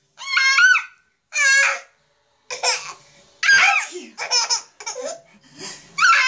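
A baby laughing in high-pitched squealing bursts: two long ones in the first two seconds, then after a short pause a quicker run of shorter giggles.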